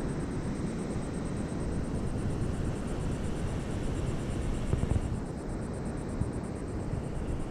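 Wind buffeting the microphone: a steady low rumble with a hiss above it, fluttering unevenly in loudness.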